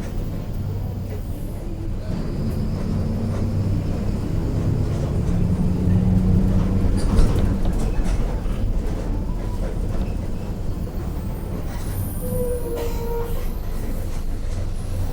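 Mercedes-Benz OF-1721 city bus under way: the diesel engine drones steadily while the rear differential growls. The growl builds from about two seconds in, is loudest around the middle, and fades after, with light rattles and clicks over it.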